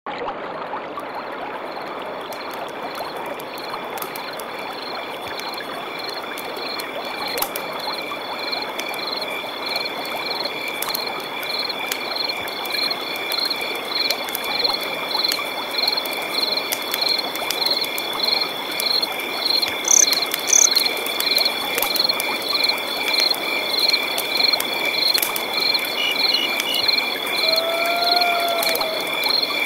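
Night-time chorus of crickets and frogs: insect trills pulsing about four times a second over a steady hiss, gradually getting louder, with a few short chirps and one arching call near the end.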